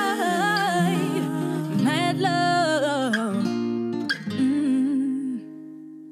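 Closing bars of a pop song performed with guitar: a woman's wordless vocal runs over held guitar chords. About five seconds in the singing stops and the last chord rings on, fading away.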